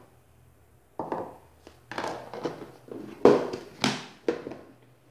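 Plastic food storage containers and their snap-on lids being handled on a table: about five short clatters and knocks of plastic on plastic as a lid is fitted and the boxes are set down.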